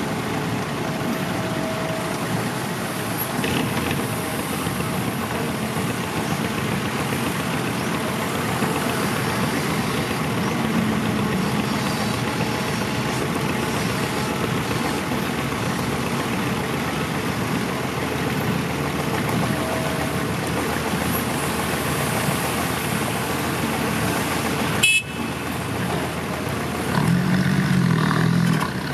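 Six-wheel dump truck's diesel engine running loaded with soil, a steady rough engine noise. It breaks off briefly about 25 seconds in, and a stronger pitched engine note comes up near the end.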